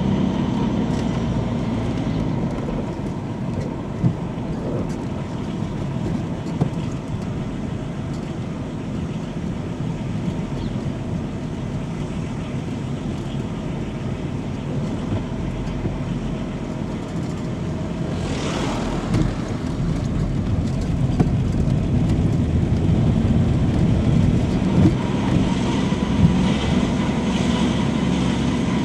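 A moving car's engine and tyre road noise as a steady low rumble. About eighteen seconds in there is a brief rushing sound, and the noise grows a little louder near the end.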